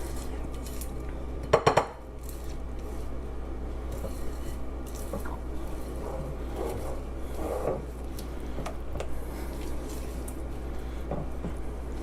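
Kitchen utensils clinking and scraping against a mixing bowl and dishes. About a second and a half in come three quick, sharp knocks, followed by lighter scattered clinks and scrapes.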